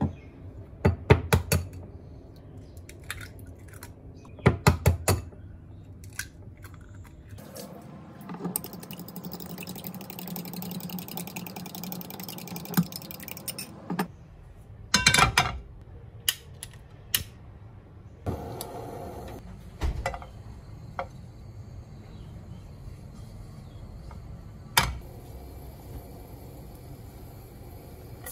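An egg tapped sharply against the rim of a glass bowl in two quick clusters of knocks, then beaten in the bowl with a rapid, even run of clinks against the glass for about six seconds. Scattered single clinks and knocks of kitchenware follow.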